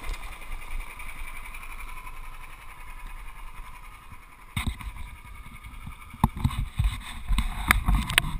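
Small off-road go-kart buggy engine running, muffled, as the kart rolls slowly to a halt. From about halfway, irregular thumps and sharp knocks close to the microphone take over and grow busier near the end.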